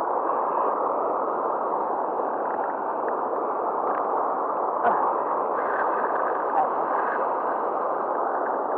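Steady rush of turbulent river water churning below a weir, with a couple of faint handling knocks about five seconds in.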